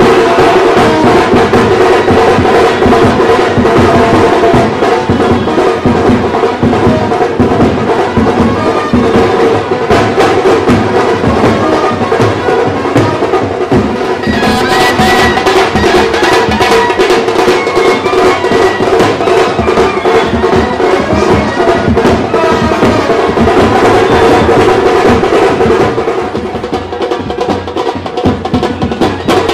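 Baraat wedding-band music: loud, busy drumming under steady held horn-like tones.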